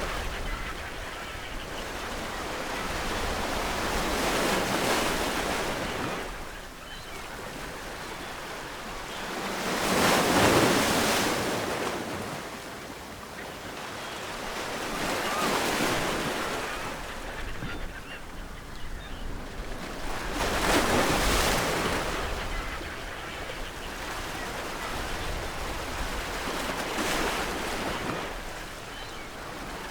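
Ocean waves breaking on the shore, each wave swelling into a rushing surge and then washing back; about five surges, the loudest about ten seconds in.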